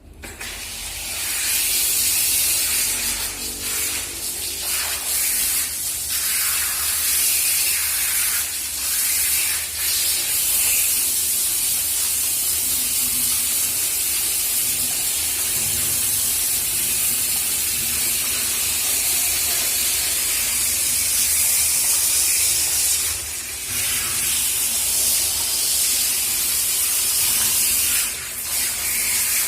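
Water spraying steadily from a handheld shower head while a cat is bathed, a continuous hiss that starts at the beginning and dips briefly twice near the end.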